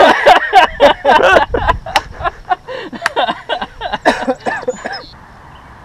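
Indistinct men's voices, with many sharp clicks and knocks among them.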